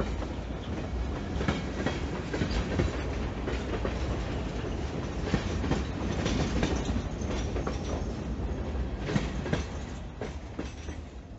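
Freight train hopper cars rolling past, their wheels clacking irregularly over the rail joints over a steady low rumble; the sound fades about ten seconds in.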